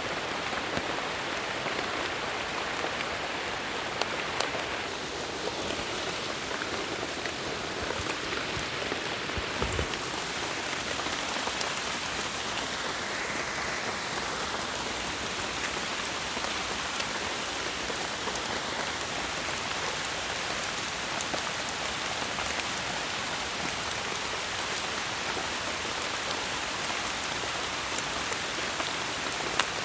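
Steady rain falling on forest leaves and undergrowth: an even hiss with scattered sharper drip ticks.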